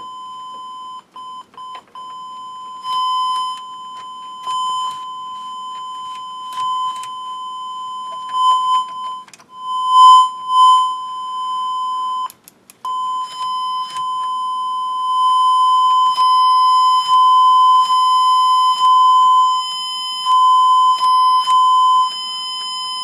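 Steady high test tone from a signal generator played through the Technics SA-120 receiver's speakers. It cuts out briefly a few times and jumps up and down in loudness as the receiver's controls are worked. The dropouts are the channels cutting in and out on controls that need cleaning.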